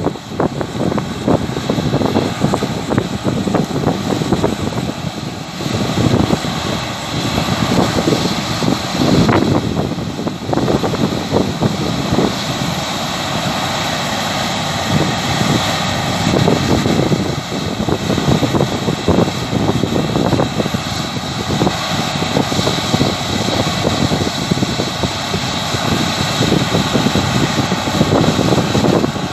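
Claas Lexion 660 combine harvester working in standing wheat: a steady, loud mechanical drone of engine, threshing gear and fans with a constant high whine over an uneven low rumble.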